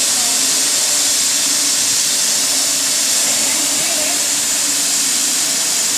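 Industrial steam boiler rated at 1.5 tons per hour, letting off a loud, steady hiss of steam over a constant low hum.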